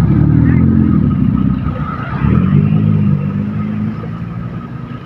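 Motor vehicle engine running close by, with low pitch that rises and falls, loud for about four seconds and then fading.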